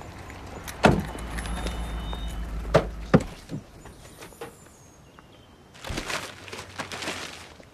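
Car door handling, with a few sharp knocks and a shut about three seconds in, over a car engine's low hum that stops at the same moment. About six seconds in there is a brief rush of noise.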